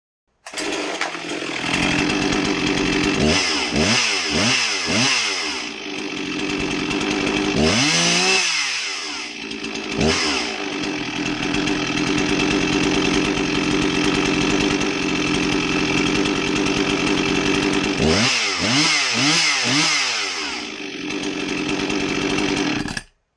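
Husqvarna 261 two-stroke chainsaw running with quick throttle blips: a cluster of short rev bursts a few seconds in, another around the middle and another near the end, and steady running between. It stops suddenly just before the end.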